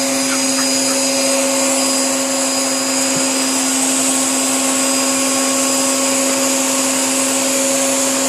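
Vacuum cleaner running steadily, a constant hum and hiss, as it is drawn over a shedding dog's coat to pull out loose hair.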